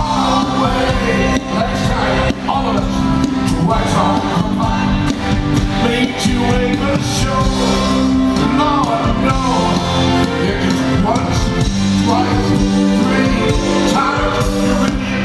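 Live amplified band playing a pop song with a lead singer, heard through the PA in a large hall.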